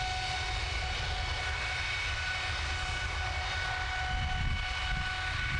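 GE90-115B high-bypass turbofan engine running steadily at triple-redline power, with fan speed, core speed and exhaust gas temperature all held at their limits. It gives a steady deep rumble with several high, even whining tones over it.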